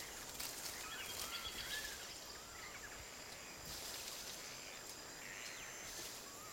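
Rainforest ambience: scattered short chirping bird calls over a steady, high insect drone.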